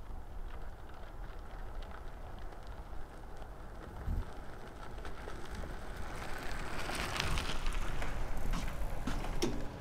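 Tyres of a loaded touring bicycle crunching over a gravel road, louder over the second half as the bike comes close, over a low rumble of wind on the microphone.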